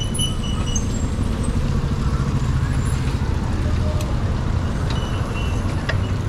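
Steady low rumble of wind buffeting a body-mounted camera's microphone and tyre noise from a mountain bike being ridden along a paved road, with a few faint short high chirps.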